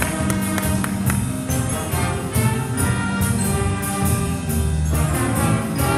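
Student jazz band playing live: saxophones and brass over piano and drum kit, with a steady beat.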